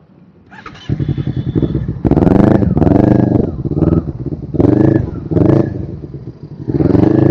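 Sport motorcycle engine revved in repeated surges while riding, its pitch rising and falling with each rev.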